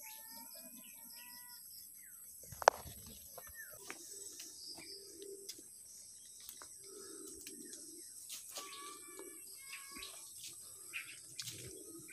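Birds chirping and whistling in short calls, twice in a cluster, over the crunch and rustle of footsteps through grass and dry leaves. A single sharp knock about two and a half seconds in is the loudest sound.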